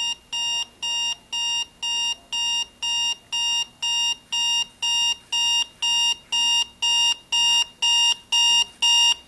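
Vintage Scooby-Doo alarm clock's alarm beeping through its small speaker, about two high-pitched beeps a second, growing steadily louder. It gets louder as the series resistance to the speaker is turned down, letting more current through the speaker.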